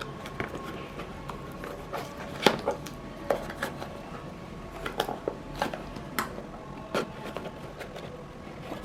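A knife cutting open a package: scattered small clicks and scraping of the blade against the packaging, with a few sharper clicks.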